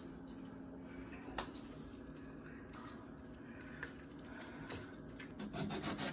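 Lemons being squeezed by hand into a pitcher: faint wet squishing with a few light clicks and taps over a low steady room hum.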